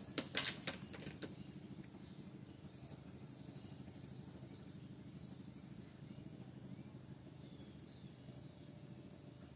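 A few sharp clicks within about the first second, from the PCP air rifle being worked between shots to chamber the next slug. Then a quiet stretch with faint, evenly spaced insect chirps over a low, steady background.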